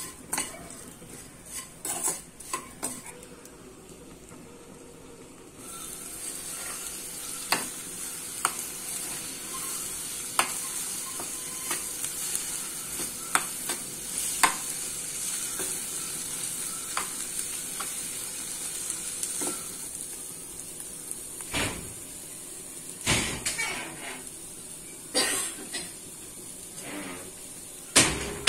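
Steel spatula scraping and tapping against a non-stick kadai as bitter gourd and egg fry are stirred, with oil sizzling throughout. The sizzle gets louder about six seconds in and stays that way.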